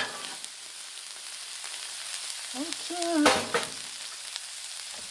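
Chopped onion, pepper, celery and smoked sausage sizzling steadily on a Blackstone flat-top griddle, with a sharp tap of a metal spatula on the griddle at the start. About three seconds in there is a brief hum from the cook and a clack.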